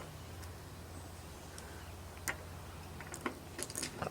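Light metallic clicks of small hood-catch hardware being handled and fitted: one click about two seconds in, then a quick cluster of clicks near the end, over a low steady hum.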